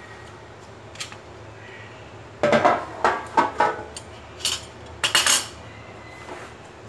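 Clattering of a black metal oven roasting tray being set down and shifted on the kitchen counter: a single click about a second in, then a series of sharp knocks and rattles from about two and a half to five and a half seconds in.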